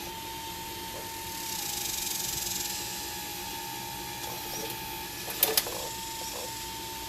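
Hydraulic pump of an RC Liebherr 954 model excavator running with a steady whine, a hiss swelling for about a second near the start as the hydraulics work, and two sharp clacks about two thirds of the way through.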